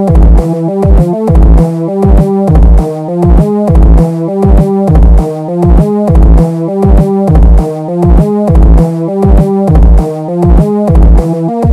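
Electronic synthesizer music: quick repeating synth notes over a held low synth note, with a steady kick-drum beat of about two thumps a second.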